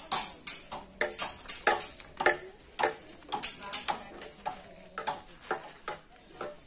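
Background music of short, quickly fading notes in a steady rhythm, about four a second, getting quieter over the last few seconds.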